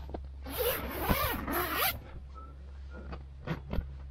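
Zip on a roof-top tent's fabric window panel pulled open in about three quick strokes, followed by a few light clicks near the end.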